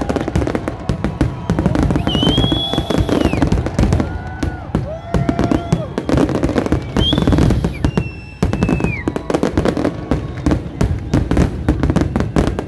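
Fireworks going off in a dense barrage of rapid bangs and crackles, with a high whistle twice.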